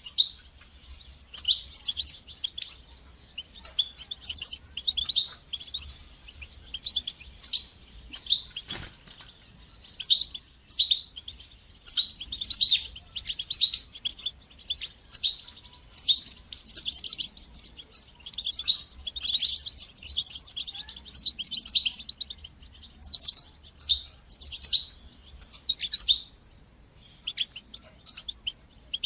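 European goldfinch singing: quick phrases of high, twittering chirps and trills, broken by short gaps, with a longer pause near the end.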